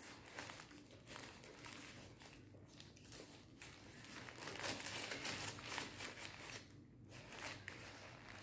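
Paper burger wrapper crinkling and rustling as it is handled and peeled back from the burger, loudest a little past halfway and pausing briefly near the end.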